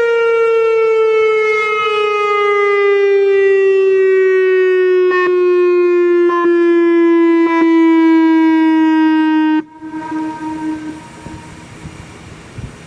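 Turkey Point nuclear plant warning siren sounding a single loud tone during a siren test. The tone slowly falls in pitch, cuts off suddenly about ten seconds in, and a faint trace of it lingers for a moment before only low background noise is left.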